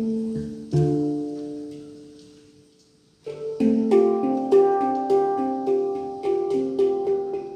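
Handpan being played by hand: struck steel notes ring out, one chord fades almost to silence, then a flowing run of notes picks up again about three seconds in.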